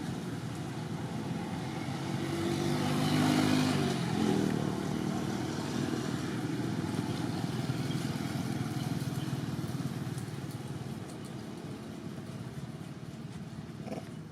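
A motor vehicle's engine passing by, loudest about three to four seconds in with its pitch dropping as it goes, over a steady background rumble.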